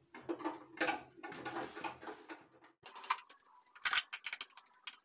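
An electric hand mixer and its wire beaters being handled with the motor off: irregular small clicks and rattles of plastic and metal, sharper from about three seconds in, as the beaters are fitted into the mixer.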